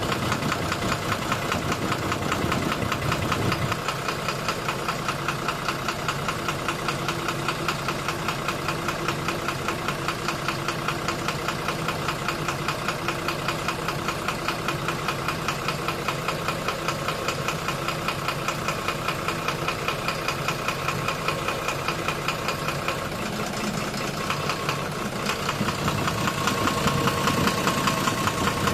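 12-M FE car engine idling with a steady, rhythmic knock from inside the engine, several knocks a second. It runs a little louder near the end.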